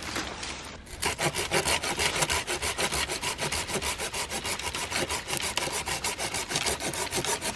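Small folding pruning saw cutting through a thin branch with fast, even back-and-forth strokes, starting about a second in.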